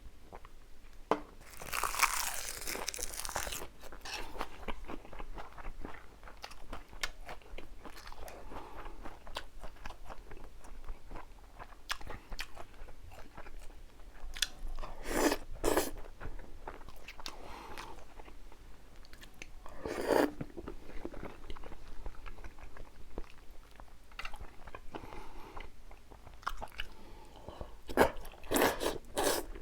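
Close-miked eating: a person chewing food with wet mouth sounds, broken by several louder crunching bites.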